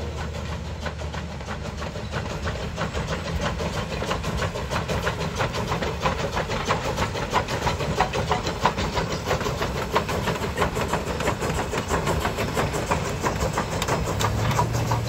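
McCloud River Railroad No. 25, a 2-6-2 steam locomotive, working steadily along the track, its exhaust chuffing in a quick, even rhythm.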